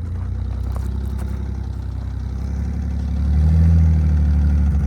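2001 Jeep Cherokee XJ engine running, heard from behind the vehicle. About three seconds in it gets louder as it takes more throttle. Its exhaust note makes one onlooker ask whether it has an exhaust leak.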